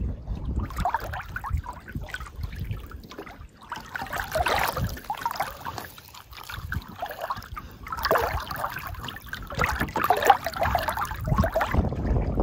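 Canoe paddle strokes: water swirling and trickling off the paddle and gurgling along the canoe's hull, in a few separate bursts a few seconds apart.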